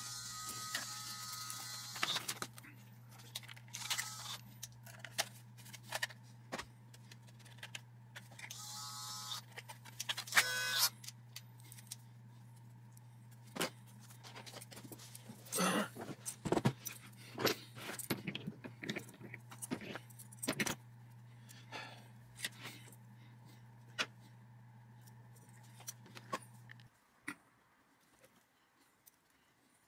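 Small metal tools and brass wire clicking, tapping and scraping at a workbench, in irregular short bursts. Under it runs a steady low hum that cuts off near the end.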